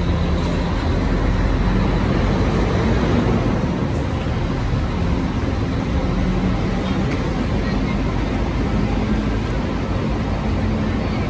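Steady low drone of idling bus engines in a bus station boarding area.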